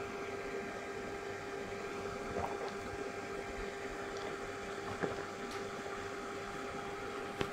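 Quiet room tone: a steady hum with a faint held tone, and a few soft faint clicks.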